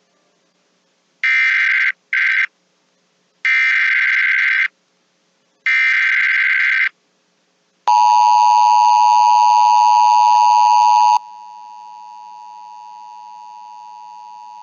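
NOAA Weather Radio Emergency Alert System tones announcing a severe thunderstorm watch: three short bursts of warbling digital header data, then the steady two-tone attention signal. About three seconds into the attention signal it drops abruptly to a much quieter level and keeps sounding.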